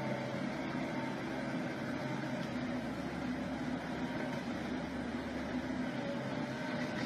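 Steady engine hum with a few low held tones, unchanging throughout.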